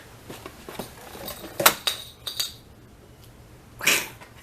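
Small hard objects knocking and clinking while being handled. There is a sharp click about one and a half seconds in, then a couple of lighter clinks with a brief metallic ring, and a short rustle near the end.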